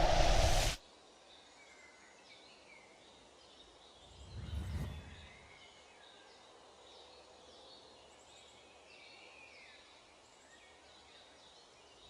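Faint birds chirping over a steady outdoor background. A loud swell of noise cuts off abruptly just under a second in, and a shorter, lower swell of noise comes about four and a half seconds in.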